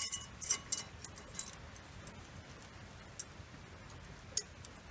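Light metallic clicks and clinks, a scattered handful with a sharper click a little after four seconds, as a steel brake pad clip is handled and fitted into a disc brake caliper bracket.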